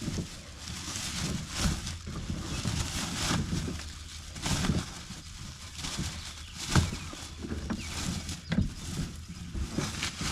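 Irregular knocks, thumps and rustling of gear being handled in and around a kayak, with a few sharper knocks in the second half.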